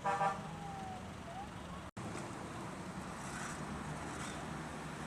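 A vehicle horn sounds briefly at the start, followed by faint gliding tones. Then, after an abrupt break, comes a steady wash of street and traffic noise.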